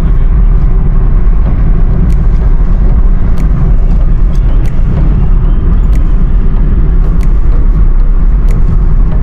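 A car driving: a steady, loud low rumble of engine and road noise, with a few faint clicks scattered through it.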